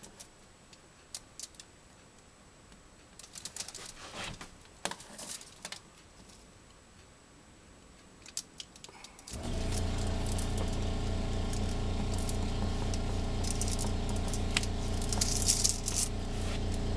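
Masking tape being pulled and pressed down along an edge over crinkly aluminium foil, with faint scattered crackles and ticks. About nine seconds in, a machine starts up suddenly with a steady low hum and keeps running; this is the loudest sound.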